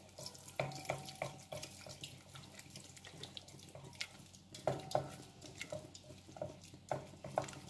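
Wooden spoon stirring a thick, wet roux as milk is worked in, in a stainless steel saucepan: irregular squelching and scraping, with short knocks of the spoon against the pan that ring briefly. A faint steady hum runs underneath.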